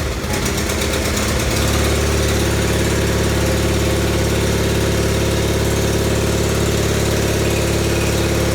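John Deere 318 garden tractor's air-cooled twin-cylinder Onan engine running just after starting. It settles into a steady idle about a second and a half in.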